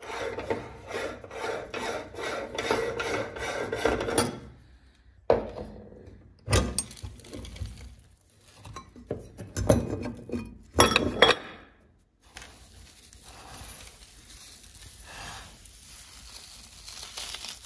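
Coffee beans crunching as they are ground through a meat grinder, a dense run of rapid cracking for about four seconds. Then several separate knocks and clinks as the grinder's plate is handled, followed by a soft, steady rustle of coarse coffee grounds being scooped by hand.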